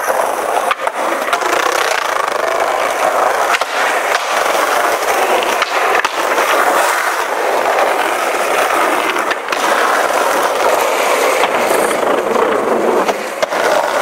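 Skateboard wheels rolling over asphalt, a steady, loud rough rumble broken by occasional sharp clicks.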